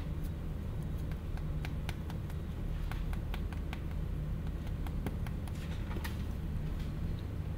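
Light, irregular clicks and taps from a plastic water bottle and a small drink carton being handled and tipped together, over a steady low room hum.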